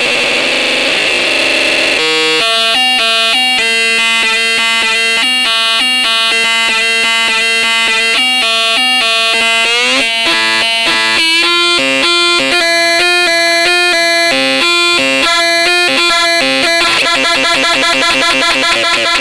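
Boombox Synth 2 synthesizer playing a buzzy, bagpipe-like melody of stepped notes over a held low drone. A noisy warbling sound fills the first two seconds, a quick upward pitch sweep comes about ten seconds in, and faster notes follow.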